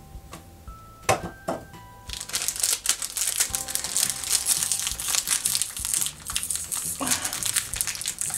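Plastic snack packet crinkling and crackling as hands squeeze and pull at it, trying to open it, starting about two seconds in. Background music plays underneath.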